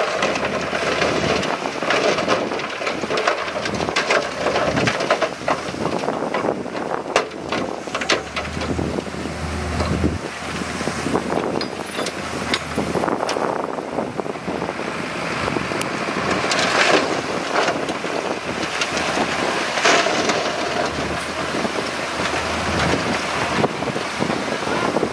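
Komatsu D31P crawler bulldozer working rock: its diesel engine running under load with a continuous crunching of rock and steel tracks, broken by many sharp cracks and clicks. Wind buffets the microphone.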